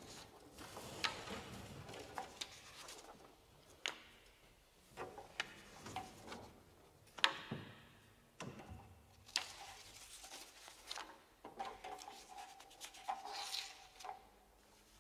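Quiet handling noise: sheet-music pages being turned and shifted on a music stand, with scattered small clicks and knocks.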